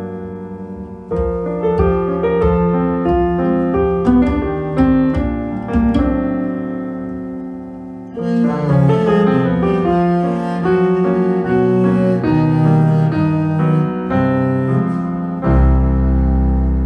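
Recorded piano music: piano chords and a melody, note by note. About eight seconds in it grows fuller and louder, and near the end a deep bass line comes in.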